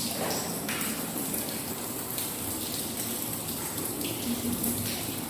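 Typhoon rain and water: a steady rushing hiss with brief louder surges.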